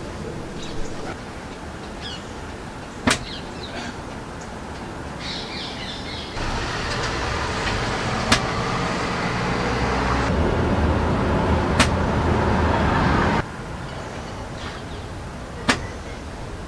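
Four sharp single bangs, several seconds apart, like hits or strikes on something hard close by. Under them a steady outdoor rumble steps up about six seconds in and cuts back abruptly about seven seconds later, where recordings are spliced together.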